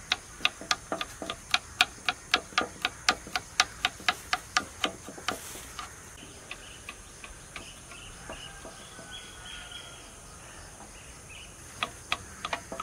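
Kitchen knife chopping garlic cloves on a wooden chopping board, a quick even rhythm of about four chops a second. The chopping stops about five seconds in and starts again near the end.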